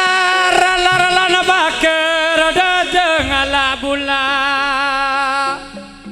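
Live traditional East Javanese music: a loud, wavering lead melody line with sliding pitch over lower held notes and tuned percussion. The lead line stops about five and a half seconds in.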